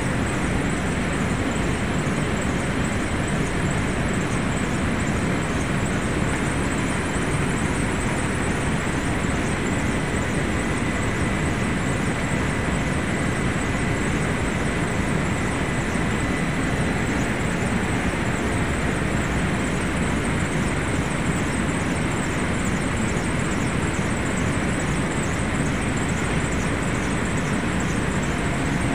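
Steady rushing noise with no break, and a faint high whistle for a few seconds near the middle.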